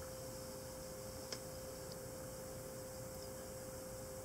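Quiet room tone with a faint, steady electrical hum and one soft click a little over a second in.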